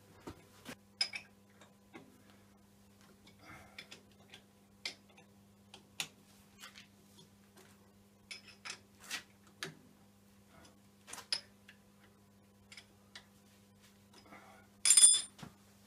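Scattered light metal clicks and taps from hands working the Schaublin 52 mill's spindle head and its fittings. One loud, ringing metal clink comes about a second before the end, over a faint steady hum.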